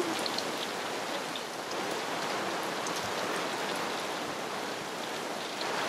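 Heavy rain pouring onto the sea and onto a sailing yacht's canvas bimini, a steady hiss with faint scattered drop ticks.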